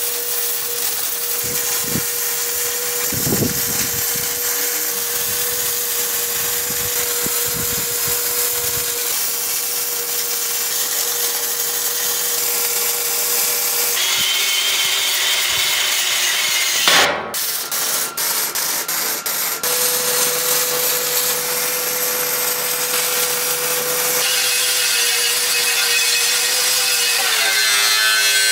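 Electric angle grinders running and grinding steel welds and plate, with a steady high motor whine and a harsh rasping hiss. The sound jumps between several grinding passes, with a short run of sharp clicks a little past the middle.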